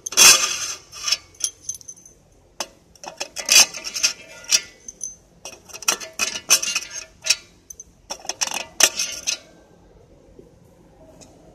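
Propeller mounting bolts clinking against one another in the hand and against the metal spinner bulkhead as they are slid into their holes, in about four bursts of sharp, ringing clinks.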